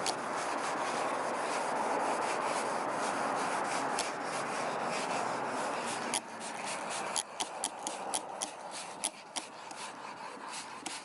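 Hand wet-sanding of a car fender's clear coat with sandpaper on a flat block: a steady rasping rub that cuts the orange peel down before buffing. The rubbing stops about six seconds in, followed by scattered light clicks and taps.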